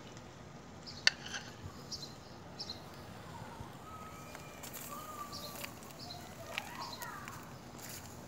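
Faint backyard background with small birds chirping, and a few light clicks of a metal fork against a ceramic bowl and the grill as chicken pieces are lifted onto the grill, the sharpest about a second in.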